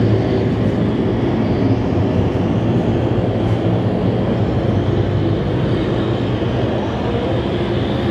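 Mini sprint race car engines running, a steady, continuous drone.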